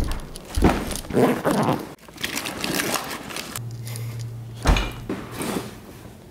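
A fabric gym bag being handled and set down: irregular rustling and scraping of the bag's material, with a soft thump about a second in and another near the five-second mark.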